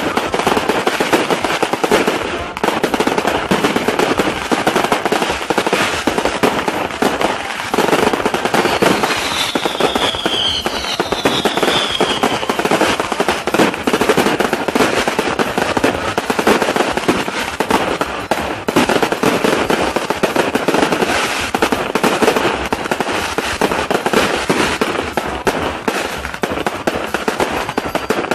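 Fireworks and firecrackers going off in a dense, unbroken crackle of many rapid bangs, with a falling whistle about ten seconds in.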